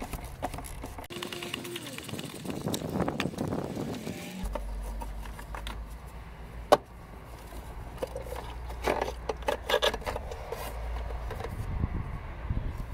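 Ratchet and oil filter cap socket clicking and knocking as the plastic oil filter housing cap on a BMW N47 diesel is unscrewed and lifted off, with one sharp clink about seven seconds in. A low steady rumble runs underneath from about four and a half seconds in.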